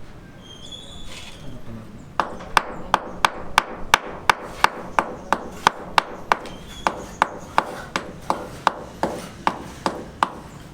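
Repeated blows of a hand tool on wood, about three sharp knocks a second in an even rhythm. They start about two seconds in and keep going for roughly eight seconds.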